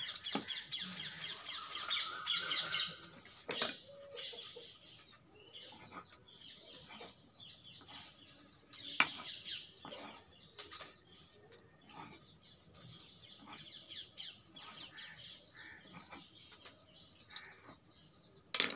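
Hands rolling a log of stiff dough on a wooden board, then a knife cutting it into small pieces with scattered sharp taps on the board, while birds chirp in the background.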